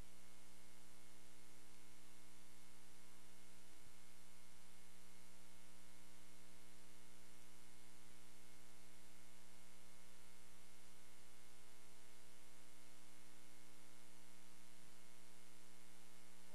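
Steady electrical mains hum with many harmonics over an even tape hiss on the recording's audio track. A few faint ticks come through, about four, eight and fifteen seconds in.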